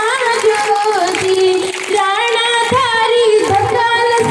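A girl singing solo in a high, sweet voice, with long held notes that bend and waver in ornamented runs.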